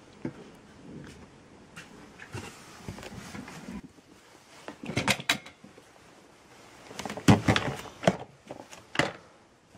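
Plastic pet carrier knocked and rattled as it is handled: scattered knocks, with louder clusters of clattering about five seconds in, again around seven to eight seconds, and once more near the end.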